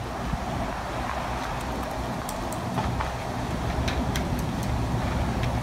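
Steady low rumble of road traffic on a city street, with a few faint clicks.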